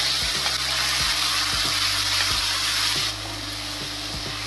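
Cubed potatoes sizzling in hot oil in a stainless steel kadhai while a spatula stirs them, with scattered clicks of the spatula against the pan. The sizzle drops a little about three seconds in.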